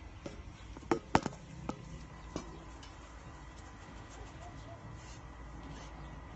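Four sharp clicks in the first two and a half seconds, the second the loudest, then only a faint steady hum.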